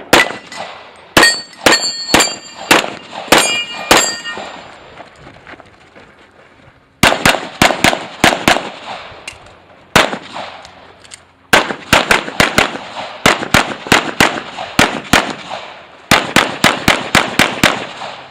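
Pistol shots fired in quick strings, four groups with short pauses between. In the first group the shots are followed by the clang and ring of hit steel targets.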